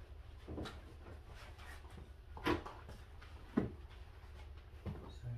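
Four short knocks and clatters of objects being handled and set down, the loudest about two and a half seconds in, over a low steady hum.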